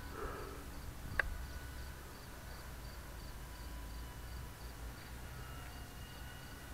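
Faint, steady whine of a distant radio-controlled FMS P-47 warbird's electric motor and propeller, under a low wind rumble on the microphone. An insect chirps softly and high about four times a second, and a single click comes about a second in.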